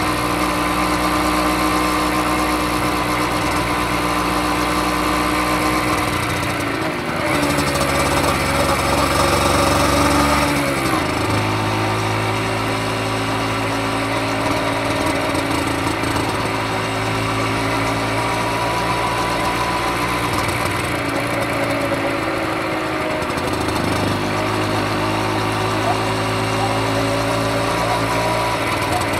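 Honda MB50's 49cc single-cylinder two-stroke engine and exhaust running at a steady pace under way, its pitch dipping and shifting briefly three times as the revs change.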